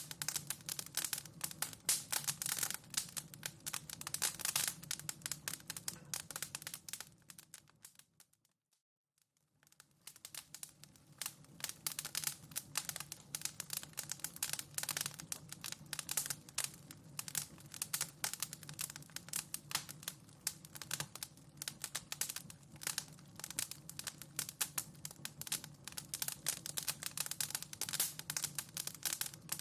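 Wood fire crackling in a fireplace, a dense run of small pops and snaps. The crackling fades out to silence about eight seconds in and fades back up a couple of seconds later.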